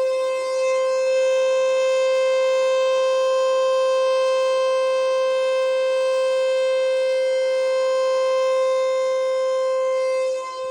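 Federal Signal Eclipse 8 electronic outdoor warning siren sounding a steady tone during a test. It holds one unchanging pitch with a bright, buzzy edge and dips briefly in level near the end.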